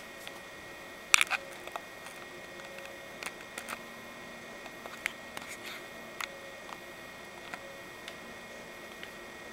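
Handling noise of a handheld camera: scattered sharp clicks and taps over a steady hiss with a faint whine. The loudest cluster of clicks comes about a second in.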